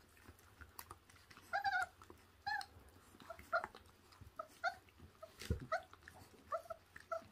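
Puppies making a string of short, high whimpering squeaks, around a dozen, while they tear at raw meat, with faint chewing clicks and a low thump about halfway through.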